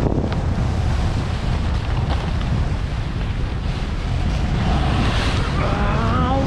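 Wind buffeting the microphone and skis hissing and scraping through crusty snow on a fast downhill run, a steady rushing noise. A brief wavering pitched sound comes in near the end.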